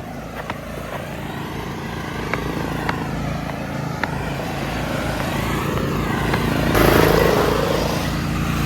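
Small single-cylinder engine of a cheap riding lawn mower running steadily and slowly getting louder, with scattered clicks. About seven seconds in a louder, noisier rush comes in.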